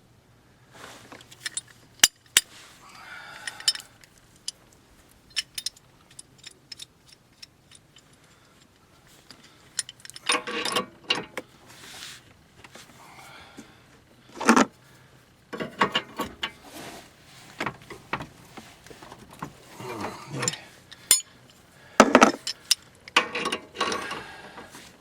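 Hand wrench work on a car's new tie rod: irregular metallic clicks and short ratcheting rasps as the fittings are tightened.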